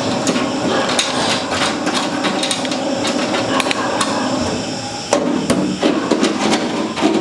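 An irregular run of sharp clicks and knocks from hard objects being handled, with a cluster of louder knocks about five seconds in and again near the end.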